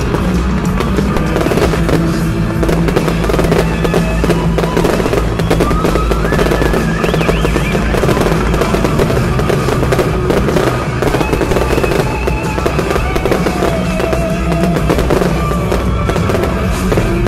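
Fireworks display going off over loud show music: dense crackling and popping bursts laid over the music's sustained notes.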